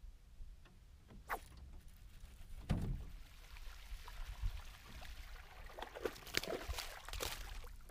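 Water splashing and scattered knocks against an aluminum boat hull while a hooked bass is fought to the boat, with a dull thump about three seconds in and the splashing busiest in the second half.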